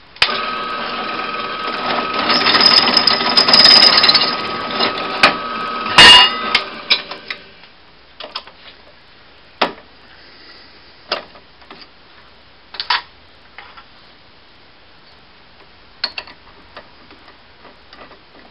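Drill press running with its bit cutting into steel angle iron. The cutting gets louder for a couple of seconds, there is a sharp knock about six seconds in, and then the press winds down. After that come scattered metallic clicks and taps as the chuck is worked to change the bit.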